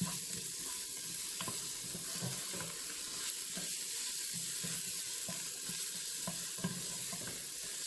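Shallots, ginger-garlic paste and curry leaves sizzling steadily in hot oil as they are stirred, with faint ticks of the spoon against the pot.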